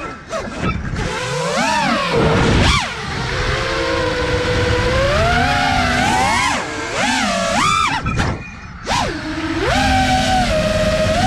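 FPV quadcopter's brushless motors whining, the pitch rising and falling steeply with the throttle through freestyle manoeuvres. The sound drops sharply twice, just after the start and again near the end, as the throttle is cut.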